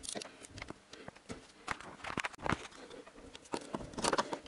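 Scattered light metallic clicks and taps of a small socket wrench on extension being fitted to and worked on the small bolts of a plastic timing-belt cover.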